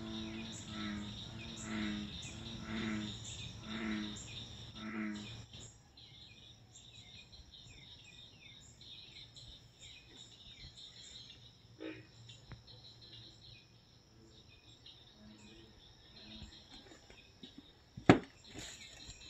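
Early-morning outdoor ambience: a steady high insect drone with faint, repeated small bird chirps. For the first five seconds a low pitched call repeats about once a second, and a sharp knock comes near the end.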